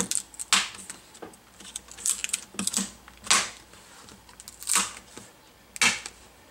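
Plastic screen bezel of an HP Chromebook 14 being prised off by hand, its snap clips releasing in several sharp, irregularly spaced clicks.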